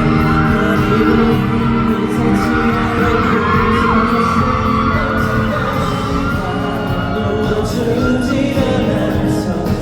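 Amplified live pop song: a voice singing over the music, filling a large hall.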